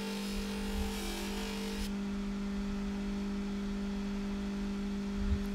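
Bench polishing machine motor running with a steady hum while a stainless-steel watch clasp is buffed against its polishing wheel; the rubbing hiss of the metal on the wheel stops about two seconds in as the piece comes off, leaving the motor running on its own.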